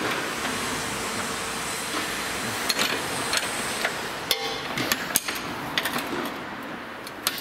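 Scattered metallic clinks and taps of a ring spanner on the nut of a suspension wishbone's eccentric adjuster bolt, over a steady hiss. One clink a little past halfway rings briefly.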